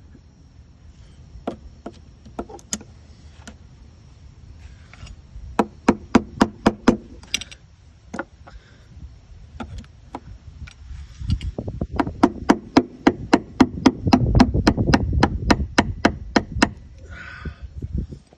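Rapid hammering on coins and a screwdriver wedged into the seam between an old B60 transducer and the hull, driving them in to break its 5200 sealant bond. A few single knocks, a short quick run, then a long fast run of about six strikes a second.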